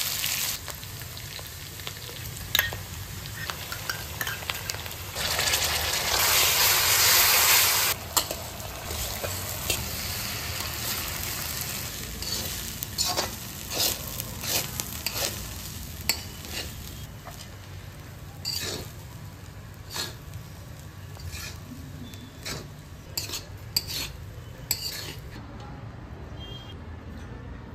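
Stir-frying in a steel wok: food sizzling steadily while a metal spatula scrapes and clinks against the pan many times. The sizzling swells louder for a few seconds about five seconds in, and fades out near the end.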